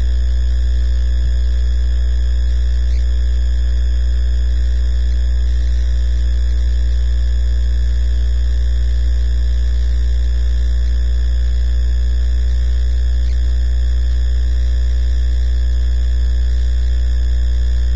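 Loud, steady electrical mains hum: a strong low tone with a ladder of evenly spaced overtones, with no change in pitch or level.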